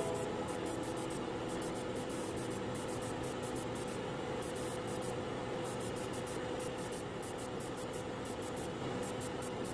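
Steady hiss of air with a faint steady hum, from the spraying setup used to prime the model parts with Mr. Surfacer 1200 primer.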